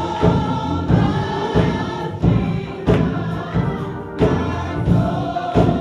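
Gospel choir singing with band accompaniment, with a steady drum beat about every two-thirds of a second under held sung notes.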